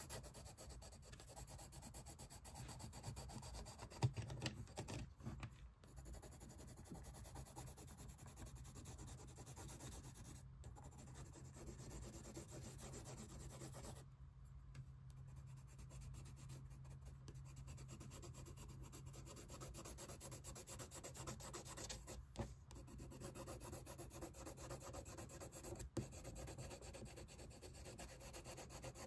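Green colored pencil scratching over sketchbook paper in quick back-and-forth shading strokes, faint and continuous with a few brief pauses. A sharp tap sounds about four seconds in and another near the end.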